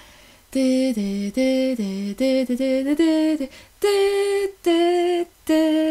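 A woman singing a Christmas song unaccompanied: a string of clear, held notes with short breaks between them and a quicker run of short notes about two seconds in.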